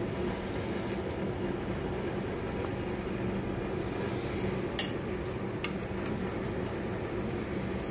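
A metal slotted spoon clinks against the crock-pot three times, sharply, about five to six seconds in, the first clink the loudest, over a steady background hum.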